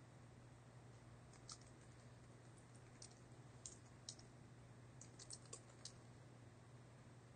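Faint, sporadic keystrokes on a computer keyboard: a few scattered clicks, then a quick run of them about five seconds in, over a low steady hum.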